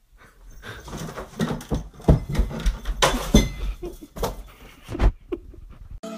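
Irregular knocking and clattering with several sharp thumps as a cat scrambles about on top of a wooden cabinet among the objects on it.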